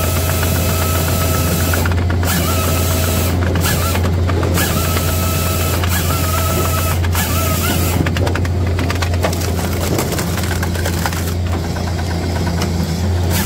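Japa 405 firewood processor running with a steady low drone, a whine that comes and goes as its chain saw bucks a log, then a stretch of rapid clattering and knocks about two-thirds of the way through as the wood is cut and split.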